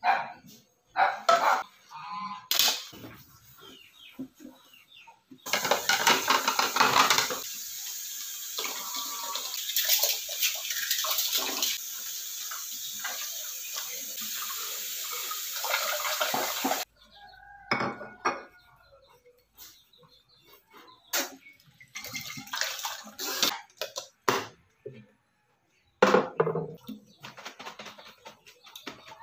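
Dishes and plastic cups clinking and knocking in a kitchen sink as they are washed and rinsed. In the middle, water runs steadily from the tap over the dishes for about eleven seconds and then cuts off suddenly.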